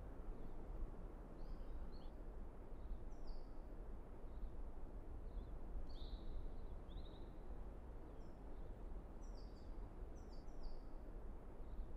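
Open-air ambience: a steady low rumble with small birds chirping. The chirps are short falling notes that come in small groups every second or two.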